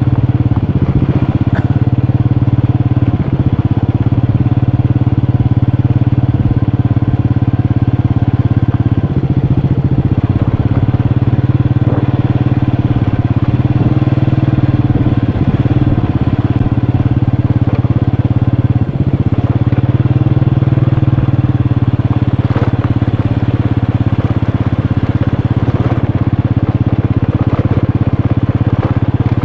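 Motorcycle engine running steadily under way, its note dipping briefly several times as the throttle eases and picks up again.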